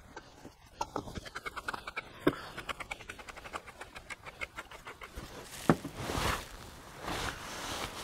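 Hand-turned salt and pepper grinders twisted over a cast-iron camp oven: a fast run of ratcheting clicks for about five seconds. Then a single knock and some rustling.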